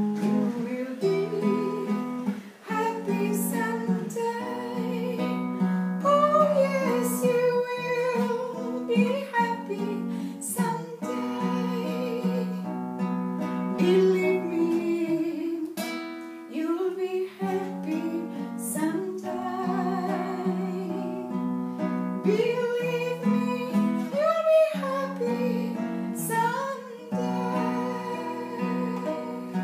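A woman singing while strumming and fingerpicking chords on a nylon-string classical guitar, her voice wavering in pitch over the steady chords.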